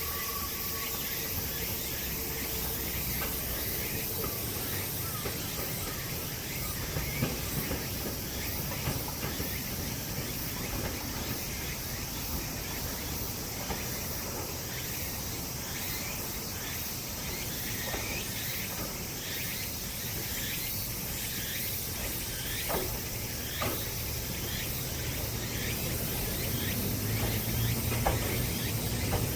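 Steady high chirring of insects in outdoor ambience, with a few faint ticks. Near the end a low rumble starts to build as a train approaches.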